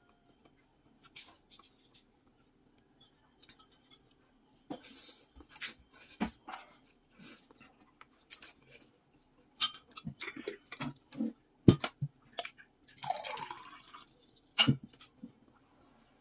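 A person eating noodle soup: a couple of longer slurps of noodles and broth, about 5 and 13 seconds in, with chewing and sharp clicks of chopsticks and spoon against the bowl in between.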